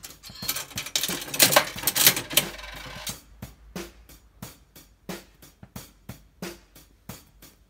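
Carddass card vending machine's coin handle being turned: a loud mechanical rattling and grinding for about three seconds as a card is dispensed. Background music with a steady drum beat runs under it and carries on alone afterwards.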